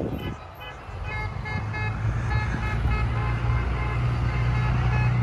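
Pickup trucks and cars driving past with engines running, a low steady rumble that grows louder after about a second, while car horns honk in many short, repeated beeps.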